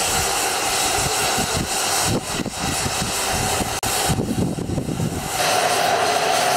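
Stationary rack-railway steam locomotive hissing steam at a water crane. After a brief break about four seconds in, water gushes from the crane into its tank with a steady hiss.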